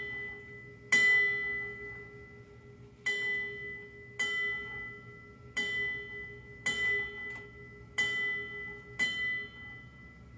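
A brass ship's bell struck in pairs, the two strokes of each pair about a second apart, tolled for departed shipmates. There are seven strokes in all, the first closing a pair begun just before. Each stroke rings on until the next.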